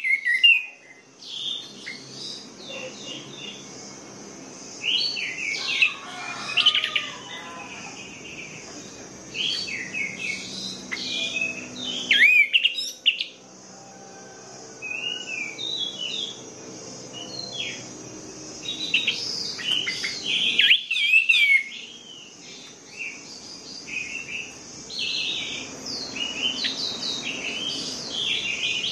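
Orange-headed thrush singing: quick bursts of varied, high twittering and warbling phrases separated by short pauses, over a faint low hum.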